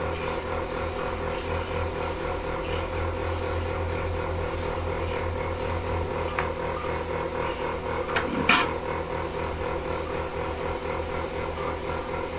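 Milking machine running steadily, a low hum with a regular pulsing beat, broken once, a little past the middle, by a short loud knock.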